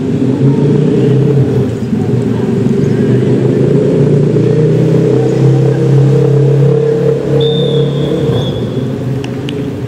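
A motor vehicle engine running close by with a steady low hum that swells a little and eases off toward the end.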